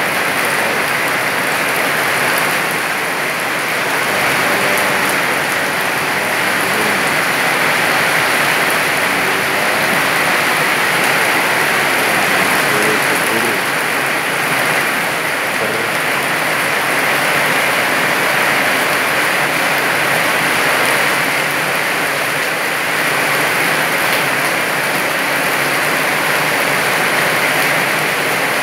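Very heavy rain falling in a loud, steady downpour, with runoff pouring off the roof edge and splashing onto the wet paved walkway.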